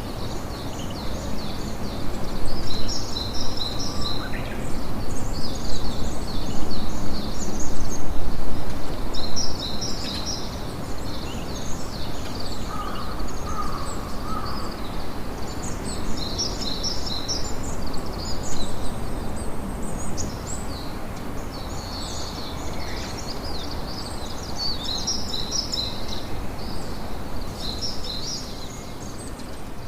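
Many small birds chirping and twittering continuously, over the low crackle of a campfire.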